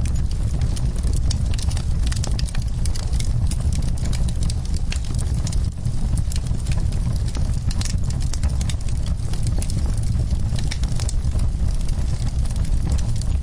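Wood fire crackling, with frequent sharp pops and snaps over a steady low rumble.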